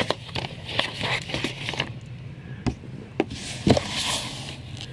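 Cardboard packing sheets and comic books being handled in a shipping carton: sliding and rustling, with a run of sharp taps and knocks. The loudest knock comes a little before four seconds in, and a rustle follows as the stacked comics are flicked through.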